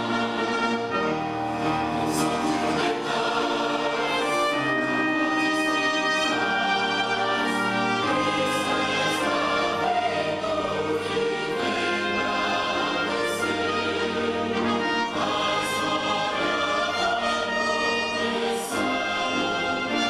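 A large mixed choir sings a sacred choral piece with an orchestra of strings, under a conductor.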